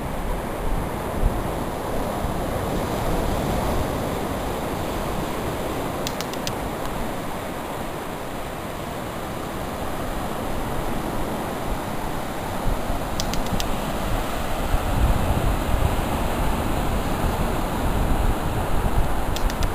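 Surf washing steadily onto a sandy beach, with wind buffeting the microphone, heavier in the last few seconds.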